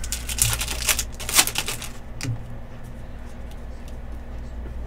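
A foil trading-card pack wrapper being torn open and crinkled for about two seconds, followed by a few sharp clicks as the cards are handled.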